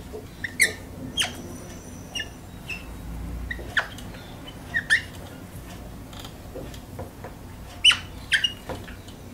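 Whiteboard marker squeaking on the board in short, irregular high chirps as an equation is written stroke by stroke.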